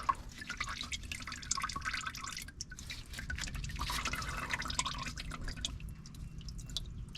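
Old engine oil from a 1976 Cadillac DeVille dribbling out in drops: a quick, irregular patter of drips.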